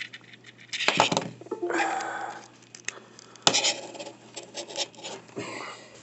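Cable connectors being unplugged from and plugged into a docking station's ports, with irregular clicks and small clatters of the plugs and cables being handled.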